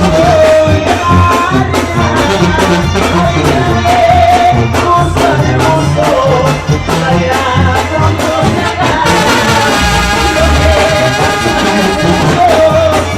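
Mexican banda music played live: brass melody from trumpets and trombones over a steady low bass and drums.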